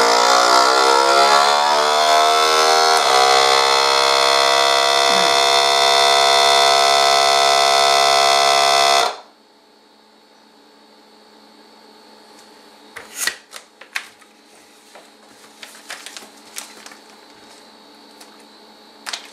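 Countertop vacuum sealer running through a sealing cycle: its motor rises in pitch over the first few seconds, hums steadily and stops abruptly about nine seconds in. A few light clicks follow later.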